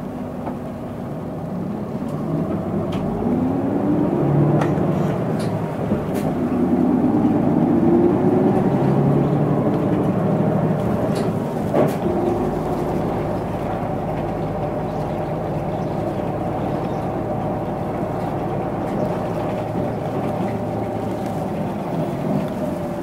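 Hino Blue Ribbon II non-step city bus heard from inside the cabin, accelerating: the engine note climbs twice over the first ten seconds, then settles to a steady cruise. A few sharp knocks and rattles from the cabin.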